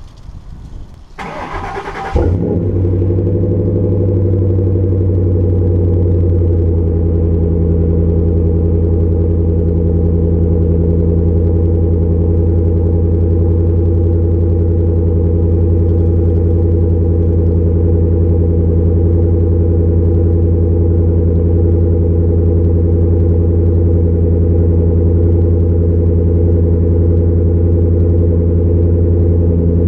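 2005 Ford Explorer's 4.6L V8 breathing through a Flowmaster Super 44 muffler, cold-started and heard at the exhaust tip. The starter cranks briefly, the engine catches about two seconds in, and it settles into a steady, deep idle.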